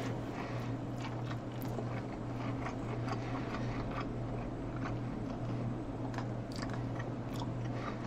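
Close-miked chewing of a sticky glazed-donut-and-fried-chicken sandwich: irregular small wet smacks and clicks of the mouth working. Under it runs a steady low hum from a faulty microphone.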